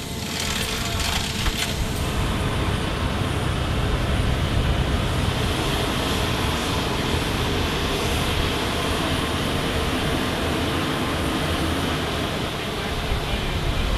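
Steady loud rumble and hiss of running machinery, with a few metal clinks of tie-down chains in the first two seconds.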